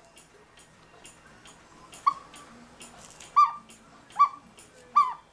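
An animal's short, high, pitched yips, four of them about 0.8 seconds apart, starting about two seconds in. A clock ticks steadily underneath.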